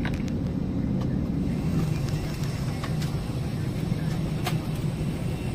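Steady low hum and rumble inside an airliner cabin at the gate, with a few faint clicks about three and four and a half seconds in.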